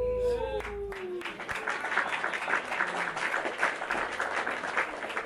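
An audience clapping and applauding at the end of a song, starting about a second in, just after a last rising-and-falling voiced note and a low sustained backing tone die away.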